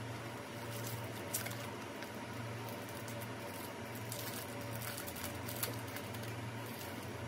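Light rustling and soft taps of paper and cardboard as printed insert cards are handled and lifted out of a keyboard box, over a steady low hum.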